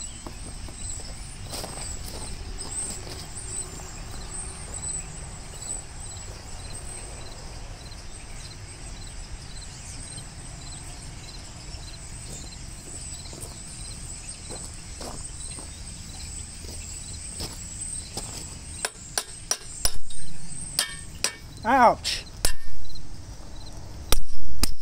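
Insects chirp steadily; then, from about 19 seconds in, a hammer strikes the metal front housing of a 1967 Gravely tractor in a series of sharp blows, loudest near the end.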